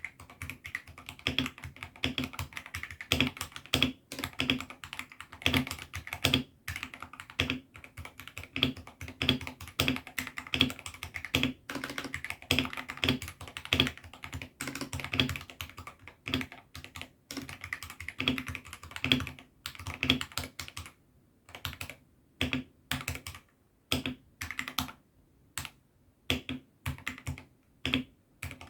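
Mechanical keyboard fitted with AKKO Sakura switches being typed on: a fast, steady run of keystrokes, thinning out after about twenty seconds into single presses with short pauses between them.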